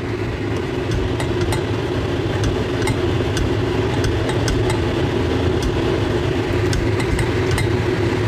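A pot of instant noodle soup with fish balls boiling on a gas hob: a steady rumble with many small scattered pops and clicks.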